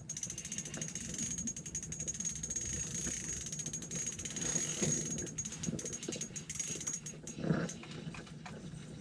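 A spinning reel being cranked to bring a hooked walleye up through an ice hole: a fast, even ticking of the reel's gears with a thin high whine, which stops about seven seconds in. A short low noise follows near the end.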